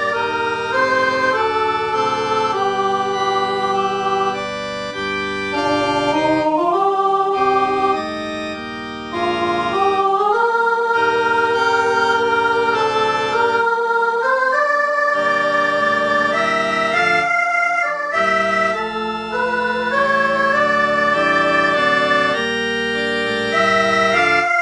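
Computer playback of a choral anthem with organ, played from music-notation software: synthetic organ-like tones holding steady, unwavering chords that change in step. The loudness dips briefly twice, at about four and a half seconds and again at about eight seconds.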